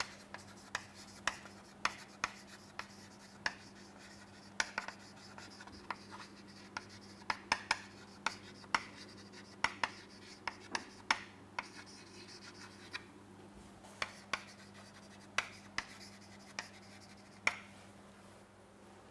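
Chalk writing on a chalkboard: irregular sharp taps and short scratches as words are written, a few taps a second with short gaps, over a faint steady low hum.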